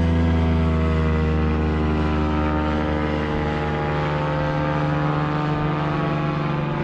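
Boat outboard motor running steadily under way. Its pitch eases slightly and its low hum thins a little past the middle.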